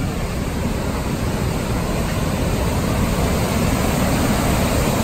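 A large river waterfall: heavy whitewater pouring over rock, a steady rushing noise that grows gradually louder.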